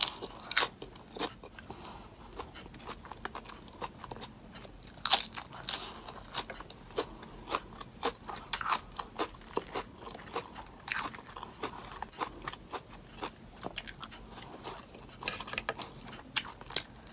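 Close-up crunching and chewing of a lettuce-wrapped burger: crisp lettuce leaves crackling at each bite, in irregular sharp crunches with softer chewing between.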